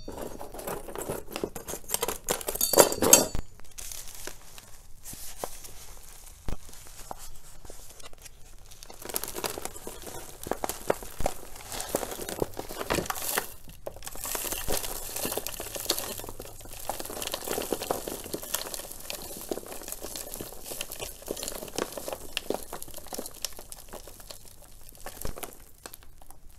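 A thin plastic nursery pot crinkling and potting soil rustling and falling as a philodendron's root ball is worked out of the pot. There is a louder clatter about three seconds in.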